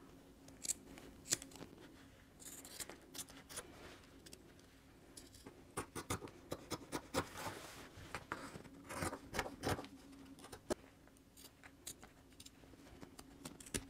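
Fabric scissors snipping through a cotton dress shirt just below the collar band: short, irregular snips, coming thicker in the middle stretch, with the cloth handled between cuts.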